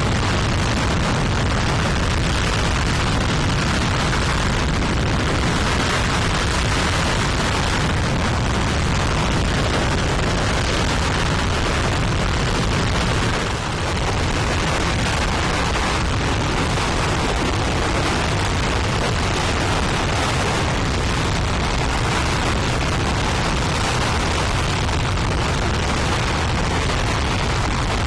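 RS-25 liquid-hydrogen/liquid-oxygen rocket engine firing on a test stand: a loud, steady, continuous rush of exhaust noise, with a brief dip in level about halfway through.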